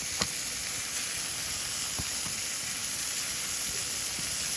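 Sliced beef tongue frying in oil on a hot iron griddle plate over a campfire: a steady sizzle, with one sharp click about a quarter second in.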